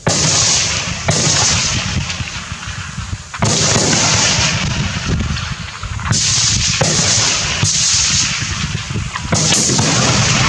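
Rifle shots fired about every three seconds on a shooting range. Each shot starts sharply and is followed by a couple of seconds of blast and echo.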